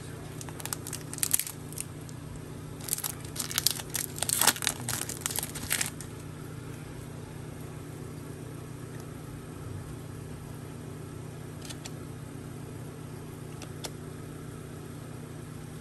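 A foil card-pack wrapper crinkling and tearing as a pack of Topps Chrome Cosmic baseball cards is ripped open, in bursts over the first six seconds. After that only a steady low hum is left, with a couple of faint ticks near the end.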